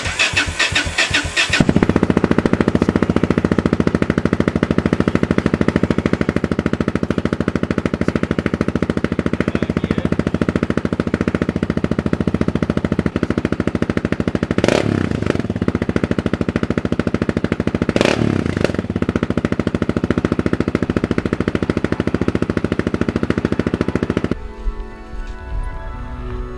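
Yamaha XT660Z Ténéré's single-cylinder engine starting up, catching about a second and a half in, then idling through an aftermarket Dominator HB1 exhaust that has no dB killer. It is loud and is briefly revved twice. Music takes over near the end.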